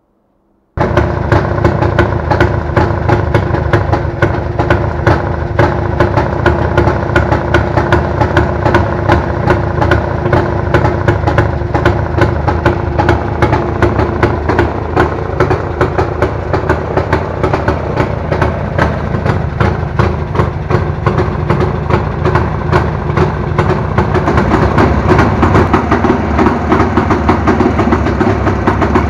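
Jawa 350 two-stroke twin motorcycle engine idling with a steady, rapid pulsing rumble through the exhaust. It cuts in abruptly about a second in and gets a little louder near the end.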